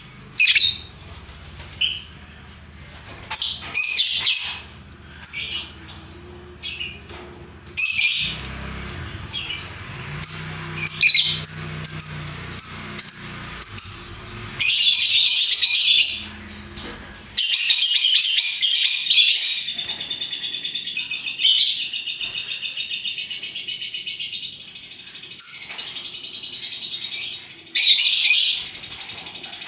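Lovebirds calling: short, shrill, high-pitched chirps in separate bursts, then a long unbroken rapid chattering trill beginning about halfway through and going on more softly, with more loud shrieks near the end. The long chatter is the lovebird's 'ngekek' song, here sung vigorously.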